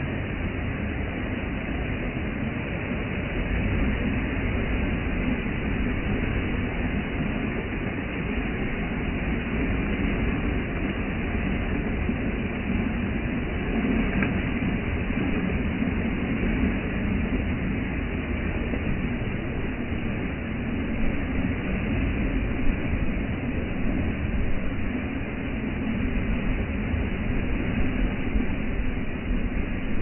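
Waterfall pouring onto rock and into a pool close by: a steady, loud rush of falling water, with spray splashing on the pool's surface.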